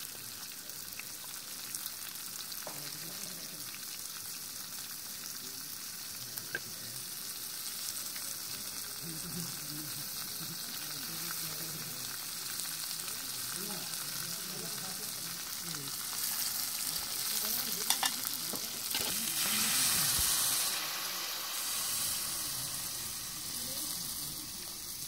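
Vegetables sizzling as they stir-fry in a metal pan on a portable gas stove, with a metal spatula clicking against the pan now and then. The sizzle grows louder about two-thirds of the way through, and near the end water is poured into the hot pan.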